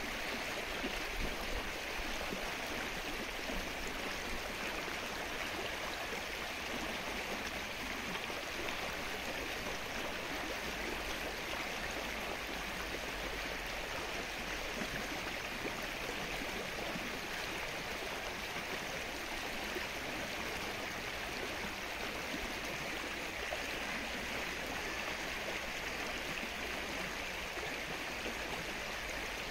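Steady rain falling on calm lake water, an even hiss of many small drops striking the surface.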